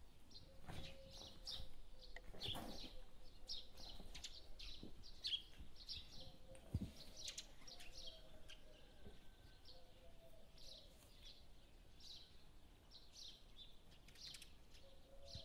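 Faint bird chirps: short, high calls repeated one or two a second, with a single soft thump about halfway through.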